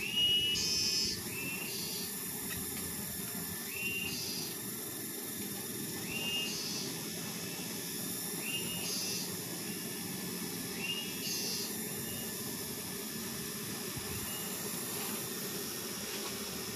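Steady hum of a giant honey bee (Apis dorsata) colony massed on its exposed comb, under a constant hiss. Over it, a short whistled call repeats about every two seconds: a rising note followed by a higher one.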